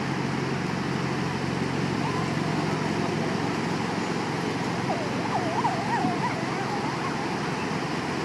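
Steady rushing noise of surf and wind at the beach, with a short wavering high-pitched sound about five seconds in.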